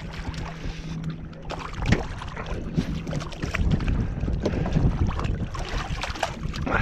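Wind buffeting the microphone on an open fishing boat, with water slapping the hull and scattered small knocks. A low steady hum runs for the first few seconds, then fades.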